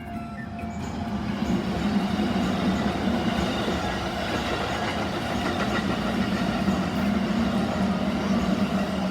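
Keikyu Main Line train running over a level crossing, a steady rumble of wheels and motors that builds over the first two seconds and then holds. The crossing's warning bell rings faintly beneath it.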